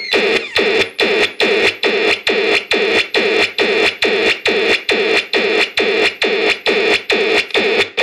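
Homemade synthesizer in a rusty radio-style box playing a minimal-techno loop: a fast, even stream of electronic pulses, about three a second, each with a quick downward pitch sweep.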